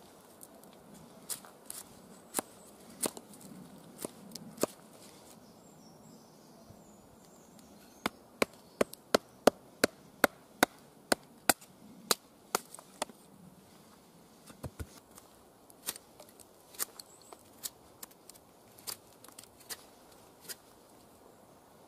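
Fallkniven Idun knife being batoned through a branch with a wooden baton to split wood off its side: sharp wooden knocks. A few spaced strikes at first, then a quick even run of about a dozen loud strikes, two or three a second, then lighter knocks about once a second.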